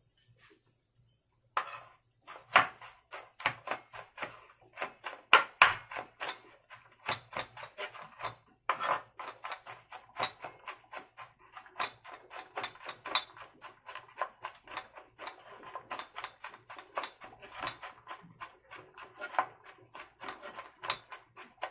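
Kitchen knife chopping garlic on a plastic cutting board: a fast, uneven run of sharp knocks, several a second, starting about a second and a half in.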